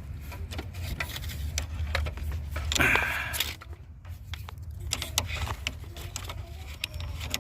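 Handling noise of hands working around an engine bay: scattered light clicks and rustles over a low rumble, with a louder brief scrape about three seconds in.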